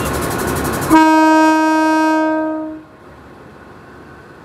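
Alsthom diesel-electric locomotive 4107 sounding one long blast on its horn about a second in, fading away after nearly two seconds. Before the horn, a loud steady hiss stops suddenly as the horn begins.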